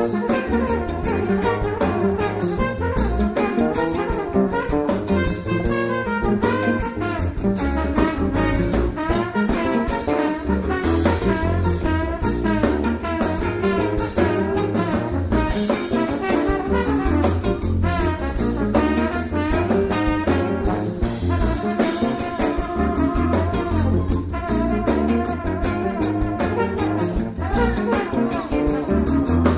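Trombone solo over a live funk band: electric bass, drum kit and guitars keep a steady groove under the horn line.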